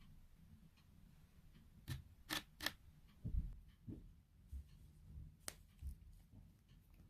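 Small nail tools and items being handled on a table: a few sharp clicks about two seconds in, then soft knocks, and one more click later on.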